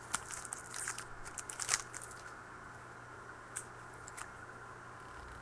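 Foil trading-card pack wrapper and cards being handled: crinkling and tearing, mostly in the first two seconds, then two light clicks over a steady low hum.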